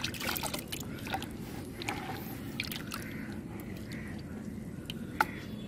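A hand stirring and sloshing watery cement slurry in a plastic bucket: wet swishing with small splashes and drips, busiest in the first half second and again around two to three seconds in.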